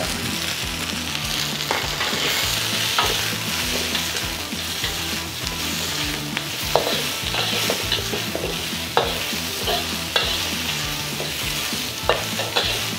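Chicken wings and ginger, scallion and garlic sizzling in hot oil in a wok over a gas flame, with a steady hiss. A metal wok spatula stirs and tosses them, clinking and scraping against the wok at irregular intervals.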